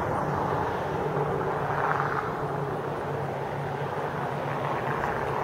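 A steady engine drone, a low even hum that holds without a break.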